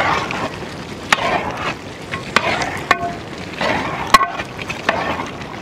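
A long-handled perforated metal ladle stirs and scrapes through thick, steaming chicken curry in a large metal pot, in repeated swishing strokes. Several sharp clinks of the ladle against the pot come through, the loudest about four seconds in, one with a short metallic ring.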